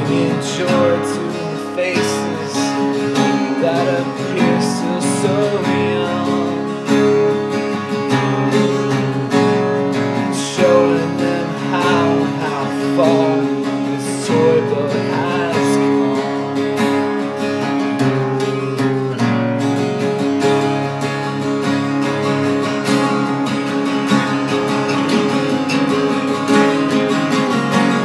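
Two acoustic guitars strummed together in an instrumental passage of a song.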